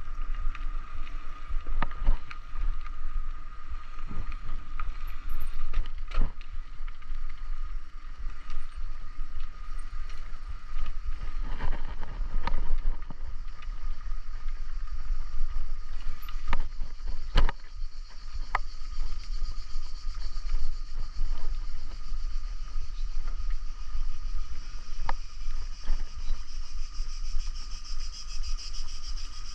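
Riding noise from a bicycle-mounted camera: wind rumbling on the microphone with tyre and road noise, a steady high whine underneath, and scattered sharp clicks and knocks from bumps and the bike's parts.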